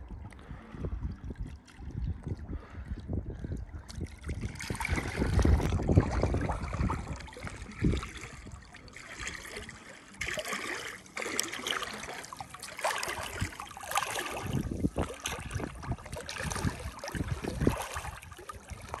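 Choppy loch water lapping and splashing right at a hand-held phone's microphone, held just above the surface. It is an uneven wash of sloshes and splashes that gets fuller and brighter about four seconds in.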